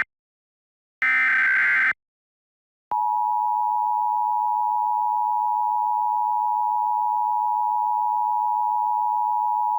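Emergency Alert System broadcast: a one-second burst of digital header data about a second in, the last of the SAME header bursts. Then, about three seconds in, the steady EAS two-tone attention signal starts and holds, signalling that an alert message follows.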